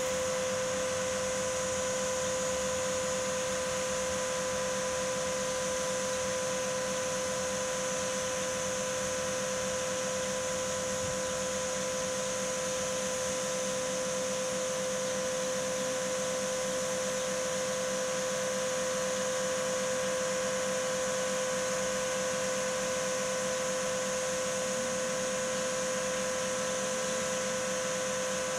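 Steady machine hum with a constant whine, unchanging throughout.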